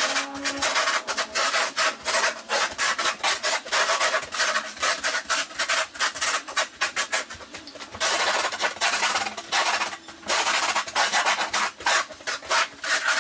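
Work boots shuffling and grinding through cat litter granules on a bare hardwood floor: a run of rapid gritty scrapes with brief lulls.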